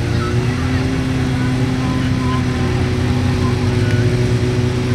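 Suzuki Hayabusa inline-four sport bike engine held at steady raised revs while staged on the drag strip start line, waiting to launch.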